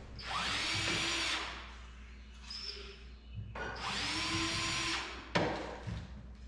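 Cordless drill run twice in short bursts of about a second each, the motor spinning up and winding down each time, followed by a single sharp knock.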